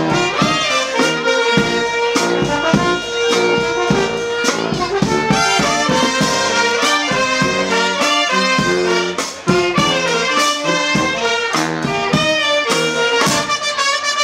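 Charanga brass band of trumpets, saxophone, baritone horn and sousaphone playing a tune together with a steady beat.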